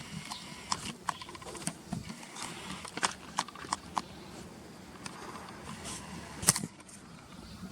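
Barn swallows twittering: scattered short, sharp chirps and buzzy rattling notes, busiest in the first few seconds, with one louder sharp click about six and a half seconds in.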